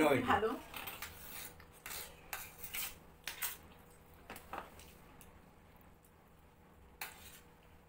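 Metal spoons scraping and clinking against stainless steel plates as two people eat a soft grain dish, in short scattered strokes that thin out in the second half.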